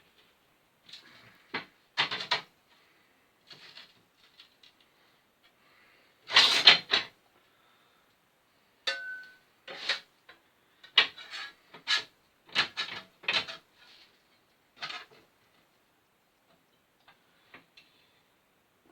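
Irregular metal clanks and knocks as sheet steel and hand tools are handled and worked, the loudest a cluster of clanks about six and a half seconds in, with one brief metallic ring near the middle.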